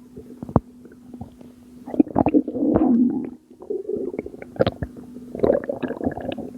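Stomach gurgling: irregular wet gurgles and clicks of fluid shifting in the belly, with a long gurgle about two seconds in and another cluster near the end, over a faint steady hum.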